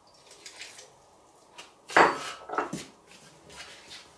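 Kitchenware knocking: a ceramic mug and a metal spoon against a plastic mixing bowl and the countertop as hot salted water is poured into flour and stirred in. There are a few light clicks, then the loudest clatter about two seconds in with two or three smaller knocks after it, and more light clicks near the end.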